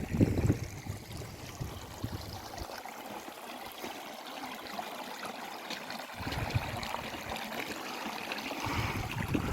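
Small mountain stream running over rocks: a steady rush and trickle of water. Low rumbles on the microphone near the start and again from about six seconds in.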